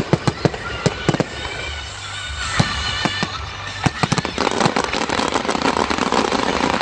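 Fireworks display: a run of sharp bangs, growing into dense crackling from about four seconds in.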